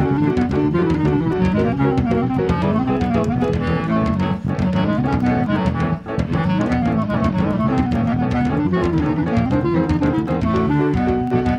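Instrumental music: a clarinet melody over a moving bass line, with steady percussion.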